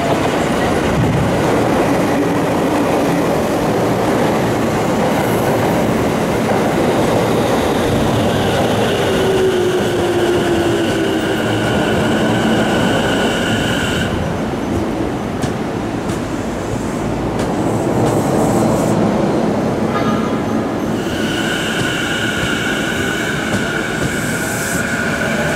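Sotetsu electric train running close past a station platform: wheels rumbling on the rails, a motor whine that slides in pitch, and a high wheel squeal that comes in twice for several seconds each.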